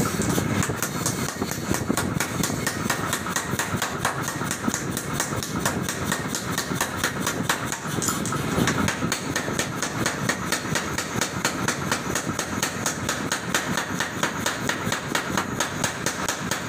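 A 50 kg pneumatic power hammer running steadily, its ram striking red-hot steel held in tongs at about five blows a second while a garden hoe blank is forged.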